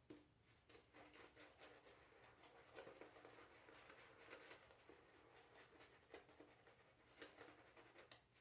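Faint, irregular scratchy brushing: a Sawdust Creation Shangra-La shaving brush working Gillette Pure cream lather over a day's stubble.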